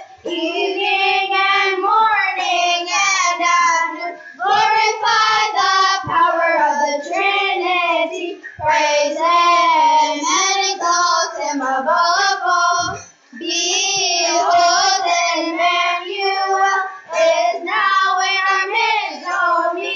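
Children's church choir singing together, with brief pauses between phrases.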